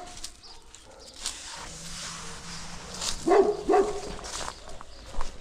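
A livestock guardian dog barks twice in quick succession, about three seconds in.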